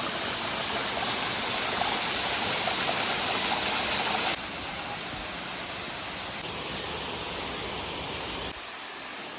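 Waterfall water rushing in a steady, even hiss. The level drops abruptly about four seconds in and again near the end.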